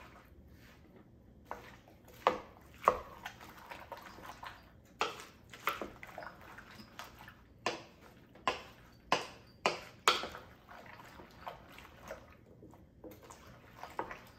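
Wooden spoon stirring chopped tomatoes, peppers and onions in a crock pot: irregular wet squelches and knocks of the spoon against the pot, roughly one a second.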